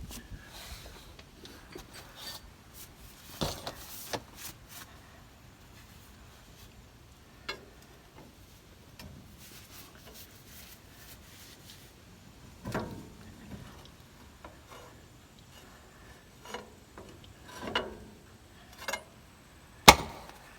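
Scattered metal clinks, scrapes and knocks as a steering-cylinder pin is worked into its bore, with a sharp knock near the end.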